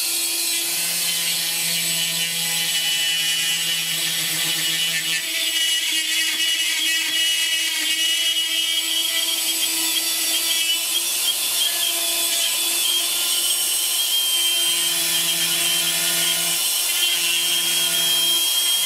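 Dremel rotary tool with a ceramic-tile cutting bit running at speed and cutting away excess clear resin from a model-kit part: a steady high whine with grinding noise over it.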